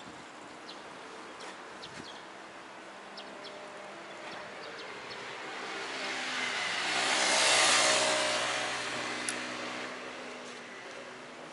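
A motor vehicle passing by on the street: its engine and tyre noise swells slowly to a peak about eight seconds in, then fades away, over a steady background of street noise.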